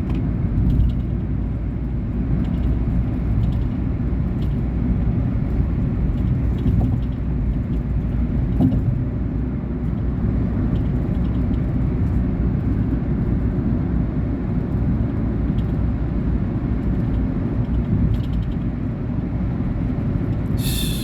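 Steady in-cabin rumble of a 2019 Volkswagen Polo Vivo being driven, engine and tyres together, with faint small rattles from the passenger seat, which has worked loose.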